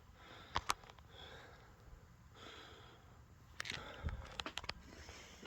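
Faint handling clicks and knocks from a fire alarm horn strobe being worked on while its tone setting is changed: two sharp clicks about half a second in, then a cluster of clicks and knocks around four seconds in.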